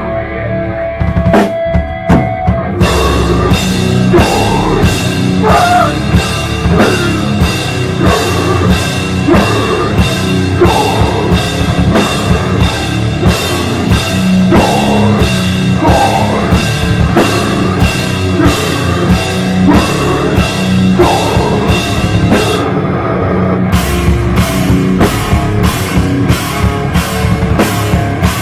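Live hardcore band playing loud, with the drum kit to the fore: evenly repeated cymbal crashes and bass drum over distorted guitars. A held tone opens, the full band comes in about three seconds in, and the cymbals drop out for a moment near the end before coming back.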